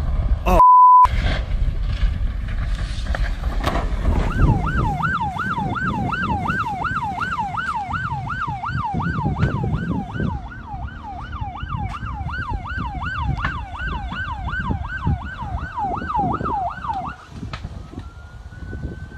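Emergency vehicle siren in a fast yelp, sweeping up and down about three times a second, starting about four seconds in and stopping near the end, followed by one slower rising wail. A short steady beep sounds under a second in, over low rumble on the microphone.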